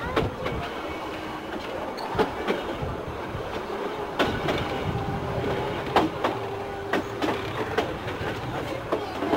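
Metre-gauge train wheels clacking over rail joints and points at low speed, a sharp irregular click every second or so over a steady rumble. A thin steady squeal runs through the middle.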